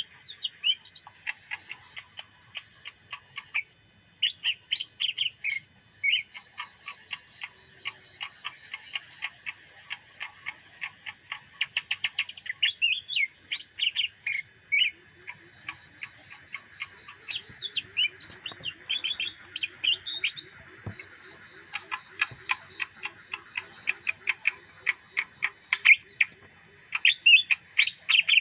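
Leafbird singing a long, varied song of quick chirps, whistled sweeps and rapid ticking trills without a break.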